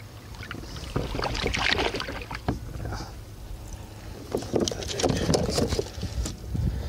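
A hooked speckled trout splashing at the surface beside a plastic kayak and being lifted aboard, with clusters of splashes, knocks and rattles against the hull about a second in and again past the middle.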